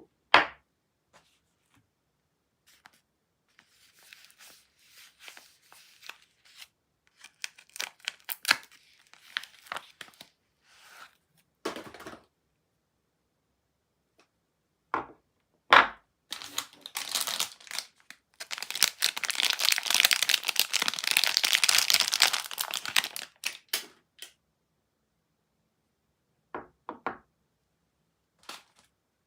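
Soap bars being unwrapped by hand: their wrapping crinkles and tears, with a few sharp taps and clicks in between. The longest and loudest stretch of tearing and crinkling comes a little past halfway and lasts about five seconds.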